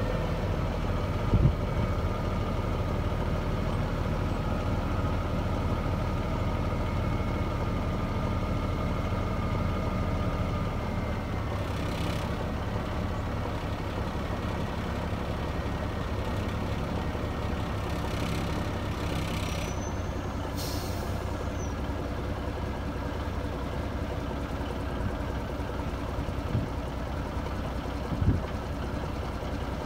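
1989 Freightliner FLD120 dump truck's diesel engine running steadily while the hydraulic hoist raises the dump bed, with a steady whine over the engine that drops slightly about ten seconds in. Short hisses of air about twelve seconds in and again a few times around eighteen to twenty-one seconds.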